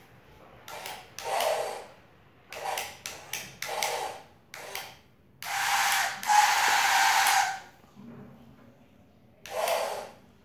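Small battery-powered electric motor and gearbox of a toy tipper truck whirring in about nine short bursts, the longest over a second, as the truck is driven back and forth from a wired controller.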